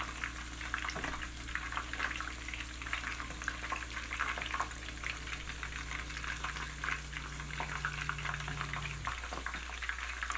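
Steady soft crackling and bubbling like something cooking, over a low electrical hum, one part of which cuts off about nine seconds in. Light taps of a fillet knife on a plastic cutting board come through now and then.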